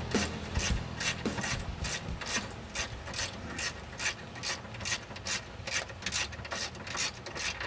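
Ratchet wrench being worked back and forth in steady strokes, a raspy burst of clicks about three times a second.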